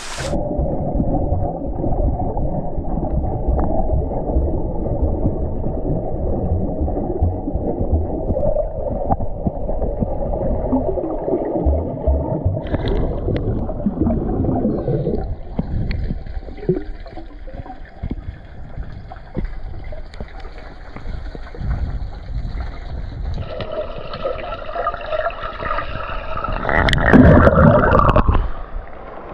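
Muffled underwater sound of a swimmer diving: low churning and gurgling of water and bubbles, heard through a submerged camera. A louder rush of water comes near the end.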